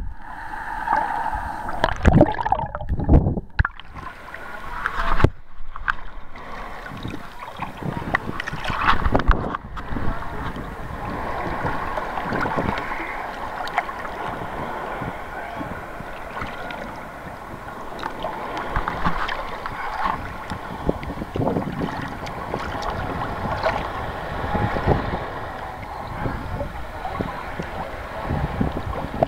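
Sea water sloshing and splashing against a camera bobbing at the surface, with irregular knocks and gurgles in the first ten seconds as it dips in and out of the water, the sound turning briefly muffled each time it goes under. After that, a steadier rush of small waves slapping the camera.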